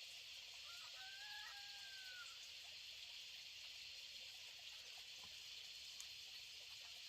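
A rooster crowing once, faintly: a short lead-in and then one long drawn-out note, over a steady background hiss.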